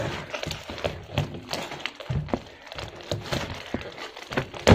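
Knife sawing through an oyster mushroom grow block of packed sawdust in its plastic bag, in repeated irregular crunching strokes, with a thud at the very end.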